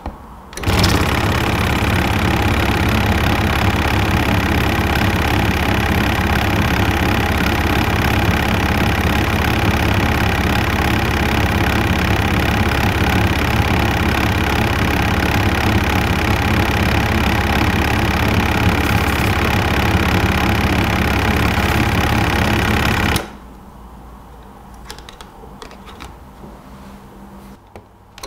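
Waterpik WP-100 Ultra water flosser running: the steady, loud, rapidly pulsing buzz of its pump motor. It switches on about half a second in and cuts off abruptly about five seconds before the end, leaving the room much quieter.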